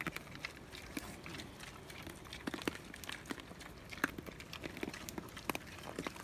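Pigs eating dry feed off the ground: quiet, irregular clicks and crunches from chewing and rooting in the feed.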